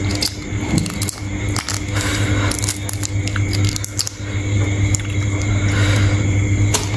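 A person chewing shrimp close to the microphone: wet, squishy mouth sounds with scattered small crackles, over a steady low hum.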